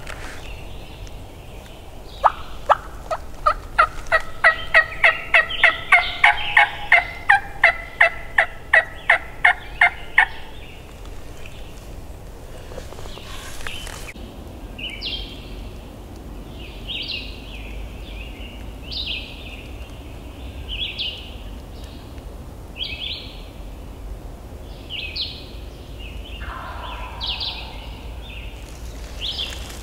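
A long run of turkey yelps, about twenty short, clipped notes two or three a second, lasting some eight seconds. A small bird follows with short high notes repeated about once a second.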